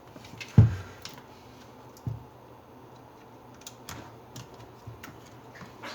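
Tools and parts being handled on a work surface: a heavy thud about half a second in, a lighter knock about two seconds in, then scattered small clicks.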